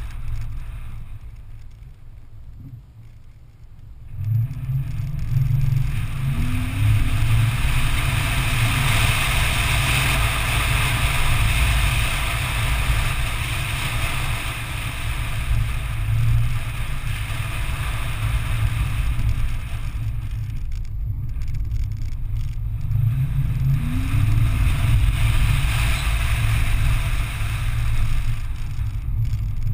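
Toyota 4Runner driving over a dirt off-road track: engine and tyre rumble that grows loud about four seconds in and then holds steady. There are brief rising revs twice, and a short lull about two-thirds of the way through.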